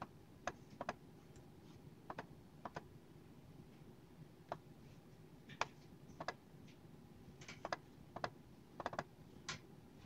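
HP laptop keyboard keys clicking under the fingers in slow, irregular typing: single keystrokes and small clusters of two or three, with pauses of a second or so between.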